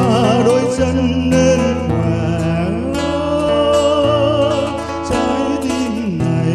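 Man singing a slow Vietnamese song into a microphone, with vibrato and a long held note a few seconds in, accompanied by acoustic guitar.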